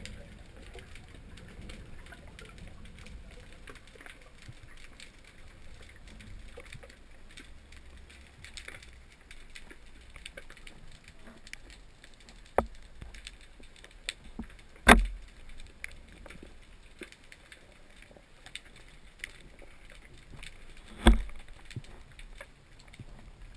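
Underwater sound from a camera on a spearfishing dive: a low rumble with scattered small clicks and crackles, broken by a few sharp knocks, the two loudest past the middle and near the end.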